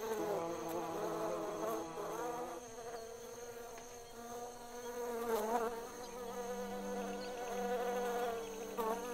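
Orchid bee buzzing in flight: a steady drone that wavers in pitch, sliding most noticeably about five seconds in and again near the end.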